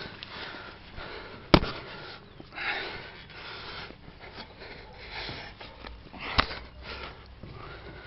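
A climber sniffing and breathing heavily close to the microphone. There are two sharp knocks, about a second and a half in and again near six seconds, as hands or the camera strike the metal railings and pipework.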